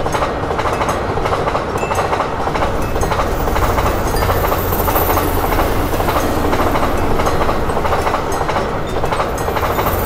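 A train passing over a level crossing: steady loud rumble and rail noise from the wheels on the track, with light clatter.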